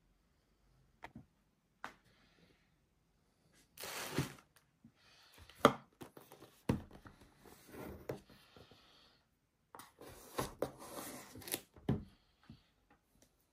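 Paper and cardboard packaging being opened and handled: two stretches of tearing and rustling, with sharp taps and knocks between them, the loudest a little before six seconds in.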